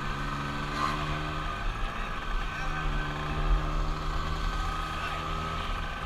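Vespa scooter engine running steadily while riding along, heard from on board the scooter.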